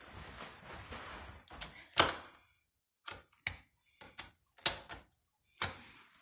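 Shuffling footsteps and handling noise, then a string of sharp clicks and knocks, about seven in all, loudest about two seconds in.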